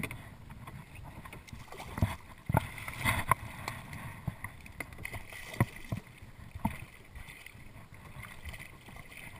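A hooked redfish splashing and thrashing at the water's surface beside a kayak, with several sharp knocks in the first seven seconds.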